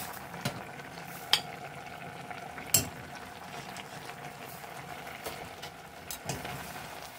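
Spicy rockfish stew bubbling in a stainless steel pot as a metal ladle scoops it out, the ladle knocking sharply against the pot a few times, loudest about a second and a half in and near three seconds in.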